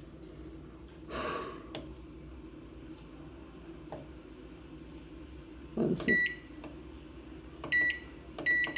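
Microwave oven humming steadily, with short high-pitched beeps about six seconds in, again nearly two seconds later, and a quick pair near the end. A brief noise comes about a second in.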